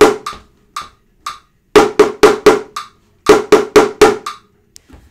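Upturned plastic bucket struck with a wooden stick, tapping groups of four quick even strokes with a rest after each group, over a metronome app ticking at 120 beats per minute.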